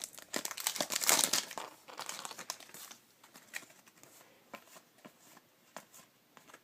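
Plastic foil trading-card pack wrapper crinkling for about the first two seconds. After that it goes quieter, with scattered short clicks of cards being handled.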